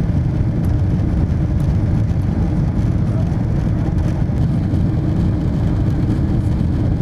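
Steady deep rumble of a jet airliner's engines and rushing air, heard inside the passenger cabin during the climb after takeoff, with a faint high whine held steady above it.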